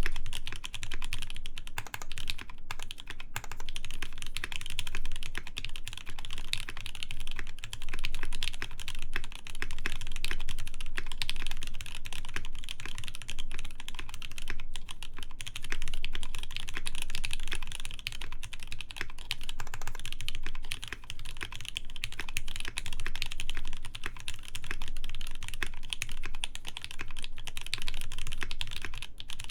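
Continuous fast typing on a Noxary T60 mechanical keyboard with lubed JWK Snow White linear switches, a 5 mm polycarbonate plate and PBT keycaps: a steady, dense stream of key strikes.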